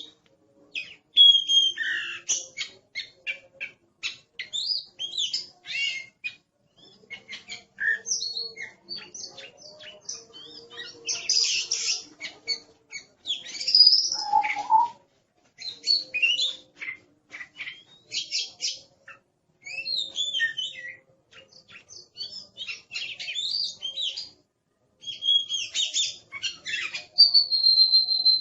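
Oriental magpie-robin singing a fast, busy song of short sharp notes mixed with gliding whistles, broken by brief pauses.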